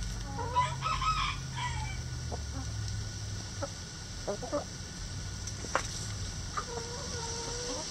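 Backyard chickens calling and clucking: a loud drawn-out call just after the start, short clucks and a few sharp clicks in the middle, and another long steady call near the end.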